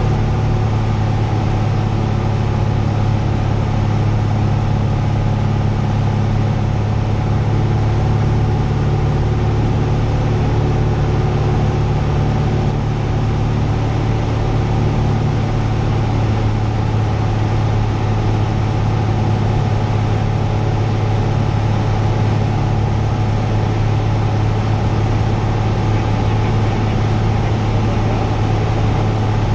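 Cessna 172's piston engine and propeller running steadily in flight, heard inside the cockpit as an even low hum over a wash of air noise.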